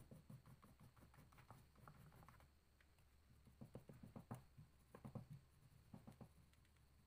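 Crayon rubbed on paper in quick, short strokes: a faint scratching that comes in clusters.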